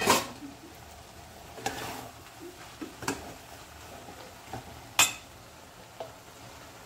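A metal ladle stirring steamed vegetables in a metal pot, knocking and scraping against the pot's side. There are a few sharp clanks, the loudest right at the start and about five seconds in.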